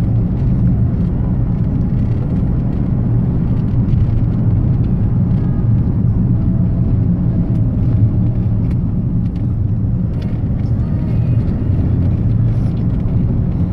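Car driving on an open road, heard inside the cabin: a steady low hum of engine and road noise, with faint scattered ticks above it.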